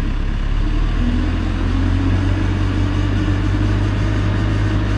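JCB 214 backhoe loader's diesel engine running at raised throttle, rising slightly in the first second and then holding a steady drone.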